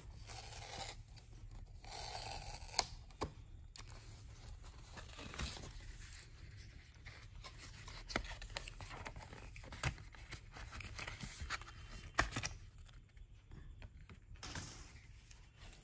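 Cardboard and paper packaging of a watch-strap box scraping and rustling as the box is opened and its card tray slid out, with a few sharp taps and clicks scattered through.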